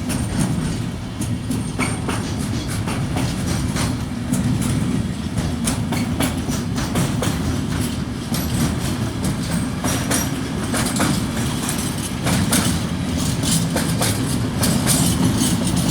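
Freight train rolling past, with a steady low rumble and the wagon wheels clacking irregularly over the rail joints. The clacks come thicker near the end.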